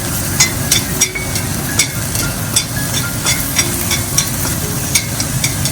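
Vegetable thoran frying in a pan on high heat: a steady sizzle as the last of its water cooks off, with the spatula knocking and scraping against the pan two or three times a second as it is stirred.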